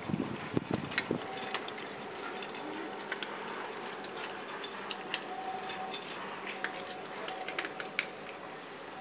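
Several cats crunching dry kibble from a bowl: irregular sharp crunches and clicks throughout, with a few dull thumps in the first second.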